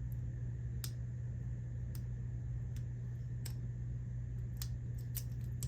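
Irregular metallic clicks, about one a second, of a lock pick and tension wrench working the pins of an American Lock series padlock that is stuck in a deep false set. A steady low hum runs underneath.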